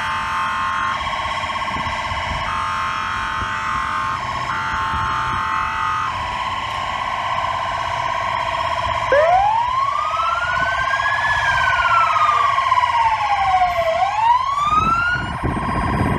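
Fire truck sirens. A steady high siren tone sounds throughout, with a second tone pulsing on and off for the first six seconds. About nine seconds in, a siren winds quickly up from low to high pitch, falls slowly, then climbs again, and a low rumble comes in near the end.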